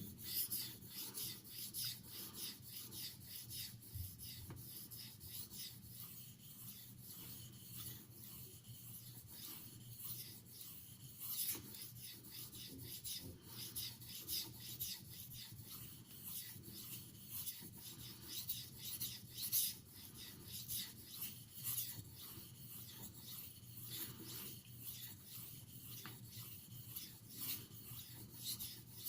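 CTS XHP steel knife blade stroked repeatedly across a 3000-grit aluminum oxide water stone, a faint run of soft rasping scrapes: the pre-polishing stage of sharpening.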